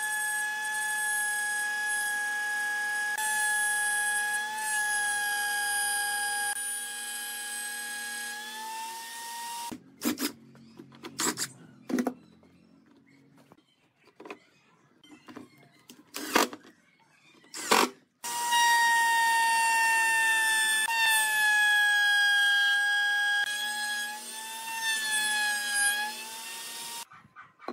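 Small high-speed electric motor spinning a cutter set in a homemade wooden bench, giving a steady high whine whose pitch sags a little as the pine is fed into the cutter. About ten seconds in it stops, leaving several short bursts, then it runs again for most of the rest.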